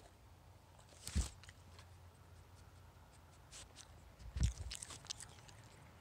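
A raccoon bumping and brushing against the phone recording it: a dull knock about a second in and another after about four seconds, with scratchy rustling and small clicks of fur and paws against the microphone around the second knock.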